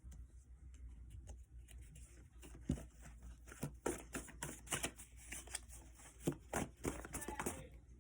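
Tarot cards being shuffled and handled, a run of irregular light clicks and snaps.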